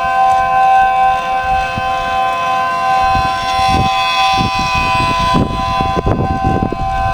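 Homemade 3D-printed mini ACA P10 siren with 12/9 ports, holding a steady two-tone alert chord. From about three seconds in, gusts of wind buffet the microphone with a low rumble.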